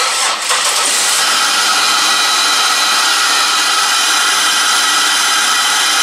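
Chevy 3800 series 3.8 L V6 starting almost at once and settling into a steady run, its fuel pump now fed through a jumper wire that bypasses the open control wire from the engine computer to the fuel pump relay. That the engine runs confirms the broken control wire as the cause of the no-start.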